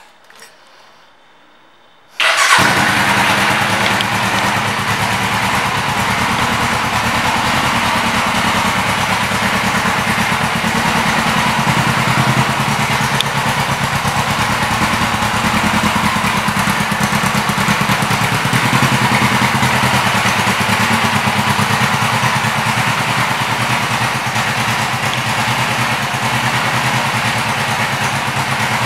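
A 2009 Suzuki GS500F's parallel-twin engine, fitted with an aftermarket exhaust, starts up about two seconds in and then runs steadily at idle.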